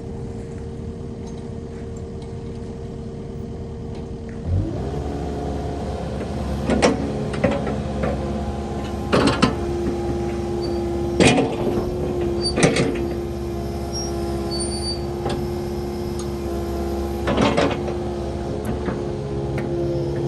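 Kubota KX080 crawler excavator's diesel engine running. About four and a half seconds in, the engine note steps up and a steady hydraulic whine comes in as the machine is worked. Several sharp knocks sound over it.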